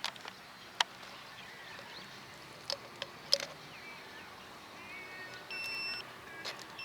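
A few light clicks and taps of handling, then, about two-thirds of the way in, an electronic beeper starts sounding long, steady, high-pitched beeps.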